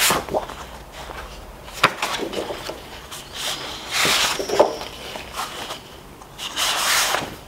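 Sheets of coloured cardstock being flipped and slid over one another: several papery swishes and rubs, and one sharp tap about two seconds in.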